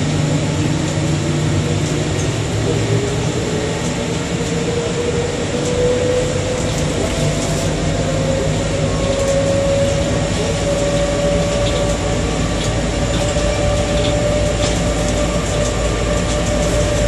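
Bombardier Innovia APM 100 rubber-tyred people mover heard from inside the car as it pulls away: the motor whine rises in pitch for the first half while the train gathers speed, then holds steady over a constant running rumble.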